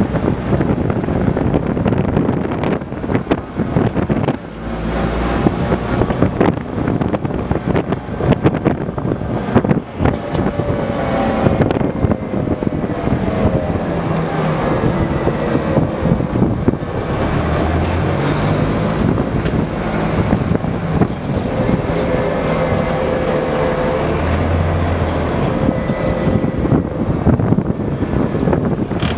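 Type 96 wheeled armoured personnel carrier's diesel engine running as the vehicle drives, heard from the open top hatch. The engine note rises and falls with speed, over a steady rattle and rush of the moving vehicle.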